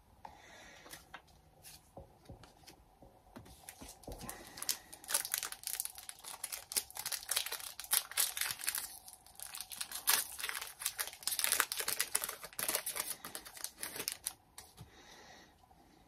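Foil wrapper of a Pokémon trading card booster pack crinkling and tearing as it is opened by hand: a dense run of sharp crackles that builds about four seconds in and dies away near the end.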